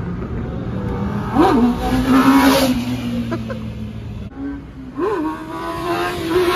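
A vehicle engine revving twice: each time the pitch jumps sharply up and then holds high and steady, and the second rev sinks slowly near the end.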